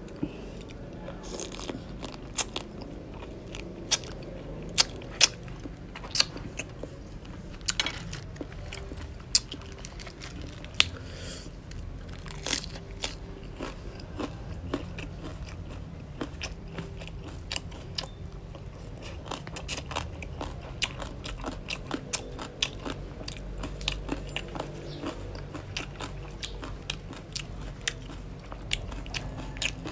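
Raw crab being bitten and chewed close to the microphone, its shell cracking and crunching between the teeth in sharp, irregular snaps throughout.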